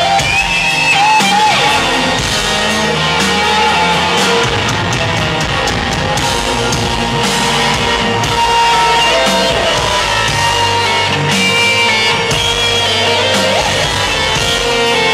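Live rock band playing an instrumental passage of a slow ballad: an electric guitar plays a lead line with bent notes over drums, bass and keyboards.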